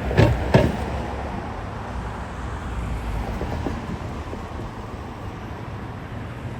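Steady urban road traffic noise, a low rumble of passing vehicles.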